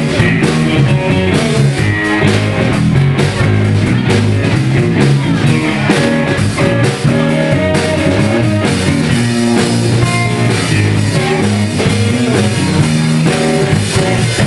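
Live rock music played loud by a small band: electric guitar over a drum kit, with a steady beat.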